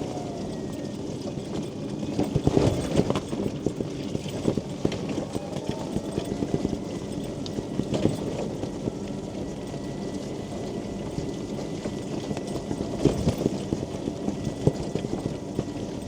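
Rain falling on a mobility scooter's canopy as the scooter rolls along the pavement, with many irregular knocks and rattles, thickest about two seconds in and again near the end.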